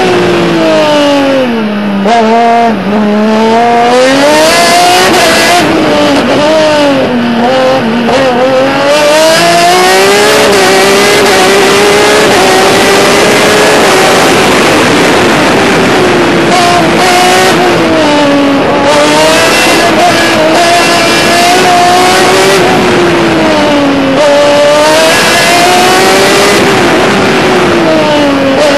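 Racing car engine heard from on board an open-cockpit race car, revving hard. Its pitch drops steeply in the first few seconds and again around eight seconds, then climbs and holds high for long stretches with brief dips, as the car slows for bends and accelerates out of them.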